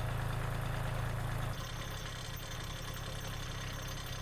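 Kubota LX compact tractor's diesel engine idling steadily, dropping a little in level about a second and a half in.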